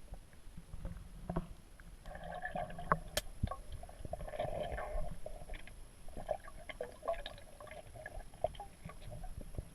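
Underwater ambience: irregular gurgling of air bubbles over a low rumble, with scattered sharp clicks and a faint steady high whine.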